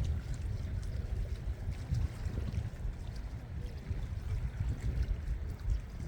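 Sea water sloshing, with wind buffeting the phone's microphone as a heavy, uneven low rumble.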